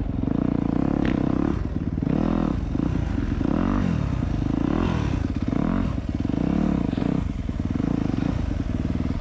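Yamaha dirt bike engine running, its revs rising and falling over and over as the throttle is opened and closed.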